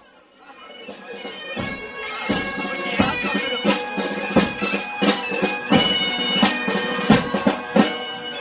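Bagpipes playing a tune over a steady drone, swelling in from quiet, with a frame drum beating a steady rhythm that joins about a second and a half in.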